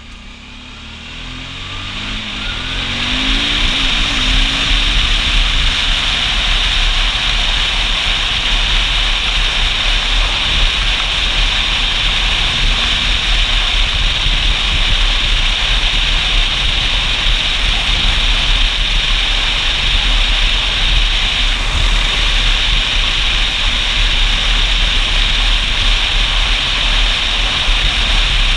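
Motorcycle accelerating, its engine rising in pitch over the first few seconds. The engine is then buried under a steady rush of wind and road noise at speed.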